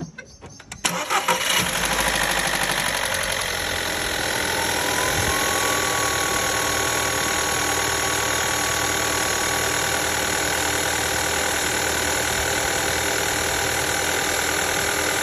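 2012 VW Golf 6 1.4 TSI (122 PS) turbocharged four-cylinder petrol engine starting about a second in, catching after a short crank, then idling steadily. A thin whine rises a little a few seconds after the start and holds.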